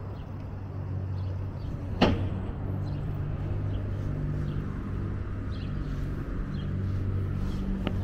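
Street traffic: a steady low engine hum, with one sharp knock about two seconds in and a smaller one near the end.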